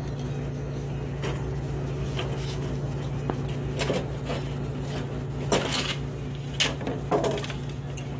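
Scattered knocks and clatters of parts and tools being handled while a snowblower's engine cover and shroud are taken apart, over a steady low hum.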